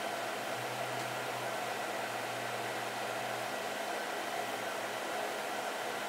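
Harmony XL Pro laser machine's cooling fan running with a steady whir and a low hum beneath it.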